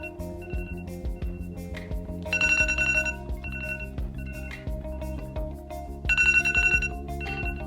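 A tablet's electronic ringing tone playing. It sounds like a bell-like trill that comes twice, about four seconds apart, with shorter single beeps between the trills over a soft musical backing.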